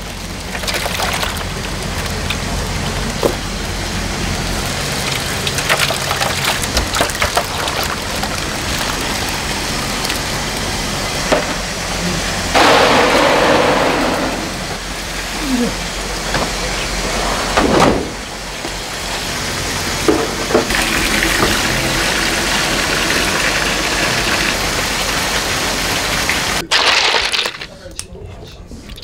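Water splashing and sloshing in plastic tubs, with plastic bags crinkling and small knocks as live eels are tipped from bags into the water. A louder rush of pouring water comes about halfway through, and the sound drops away sharply near the end.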